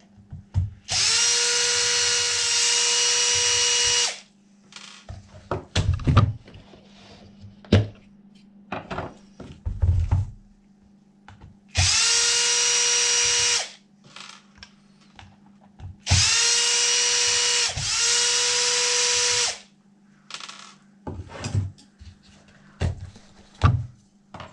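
Cordless drill/driver run three times to back out screws on a 1/5-scale RC car's wheel. Each run spins up quickly to a steady whine and holds it: about three seconds, then two, then three and a half. Clicks and knocks from handling the wheel and screws fall between the runs.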